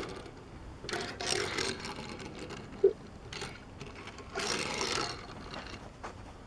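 Die-cast Hot Wheels Alfa Romeo 8C Competizione toy car rolling and skidding across a wooden tabletop, two runs of whirring wheel noise each under a second long, about a second in and about four and a half seconds in. A single short low knock comes just before three seconds.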